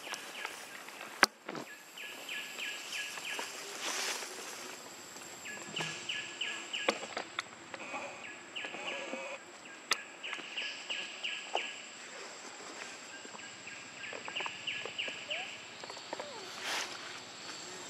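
Outdoor insect chorus: a steady high whine, with short runs of rapid, evenly spaced chirps that come back every few seconds. A few sharp clicks stand out.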